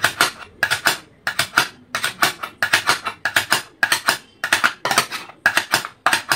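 Metal kitchen plate, an idli plate, rattled by hand in a steady rhythm of about two clattering bursts a second, a foley imitation of a car engine cranking over but failing to start.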